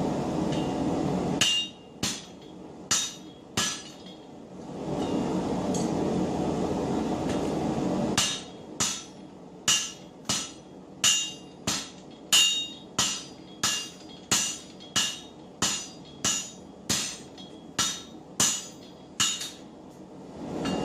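Hammers striking hot 4140 steel on an anvil as a smith and a striker forge a cross peen hammer head, each blow ringing. There are four quick blows, a pause, then a steady run of about seventeen blows, about one and a half a second. A steady rushing noise fills the pauses.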